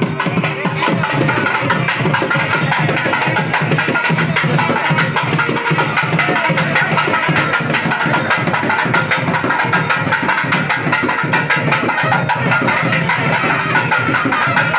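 Procession drums played fast and loud, dense strokes without a break, with a sharp high tick about once a second keeping the beat.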